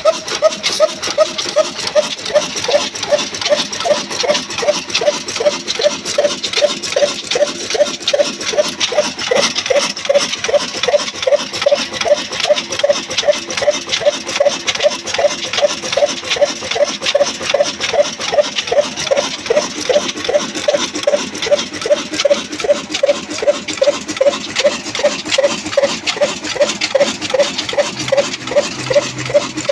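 Old single-cylinder stationary diesel engine running at slow speed, with a steady, even clacking beat of about two to three strokes a second.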